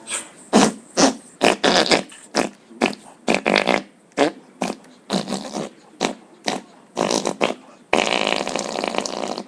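Fart-like sputtering noises, a quick string of short bursts about two a second, then one longer drawn-out one near the end.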